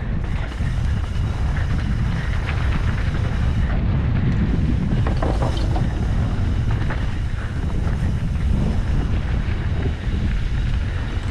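Wind rushing over the microphone of a helmet camera on a mountain bike descending a dirt trail, with tyre noise and rattles from the bike, and a burst of clatter about five seconds in.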